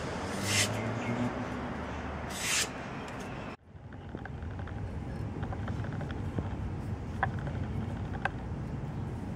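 A freshly stropped knife edge slicing through a sheet of paper in two short, crisp swishes, a sharpness test. After a sudden drop, steady background noise with a couple of faint clicks.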